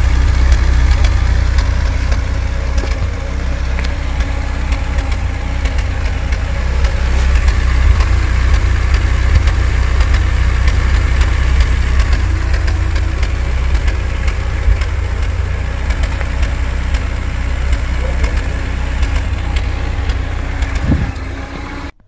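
A Mercedes W124 2.3E's four-cylinder M102 engine idles roughly with a terrible misfire, stumbling unevenly. The cause is a faulty fuel pump: system pressure is down to 3.1 bar instead of 5.5.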